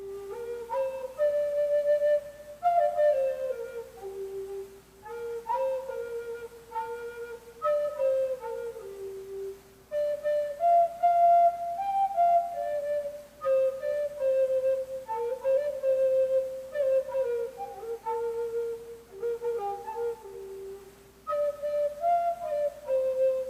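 Native American flute playing a simple, slow melody in phrases separated by short breath pauses, each phrase stepping down in pitch.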